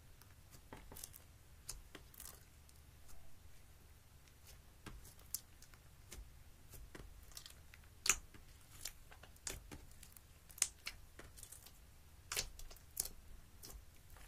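Clear slime mixed with gold eyeshadow powder being kneaded and pressed by hand: irregular small sticky pops and crackles, the sharpest one about eight seconds in.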